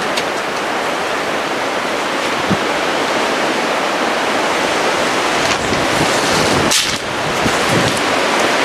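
Strong wind blowing across the microphone: a steady rushing noise, with a brief sharp click about seven seconds in.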